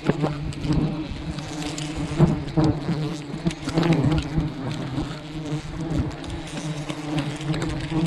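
Swarm of honey bees from a wild hive buzzing in a steady hum, with scattered clicks and knocks over it.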